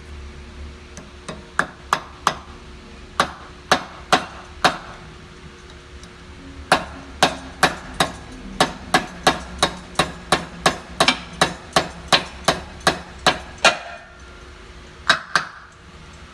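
Repeated hammer blows: a few scattered strikes, then a steady run of about two blows a second, then two more near the end. This fits driving a shaft bearing on or off during a main drive shaft bearing replacement.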